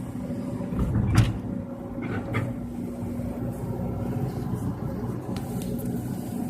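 Excavator engine running steadily, with a sharp knock about a second in and two lighter knocks a second later.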